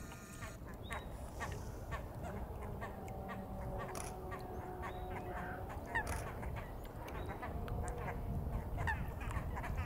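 Waterbirds calling on a lake: a busy run of many short calls, with a few longer held notes about three to five seconds in and again near the end, over a steady low rumble.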